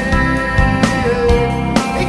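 Band music led by guitar, with held notes and a regular beat.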